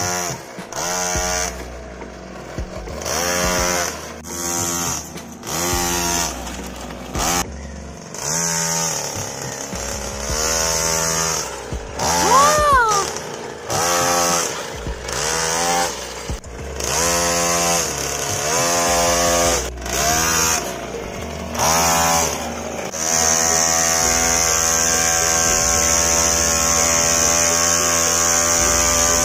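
Small engine of a homemade mini tractor pulling a cultivator through mud, revving up and down in repeated bursts about a second long. From about 23 seconds in it settles into a steady run.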